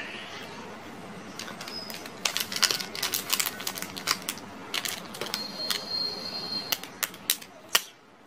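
Plastic chocolate-bar wrappers crinkling and clicking as they are handled, in irregular sharp crackles that start about a second and a half in and stop just before the end.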